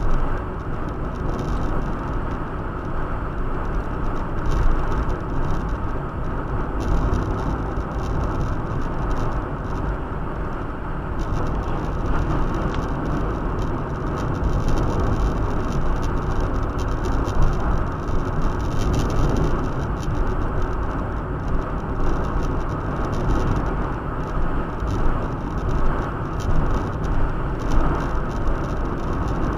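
Steady road and engine noise inside a moving car's cabin, a low rumble with no distinct events.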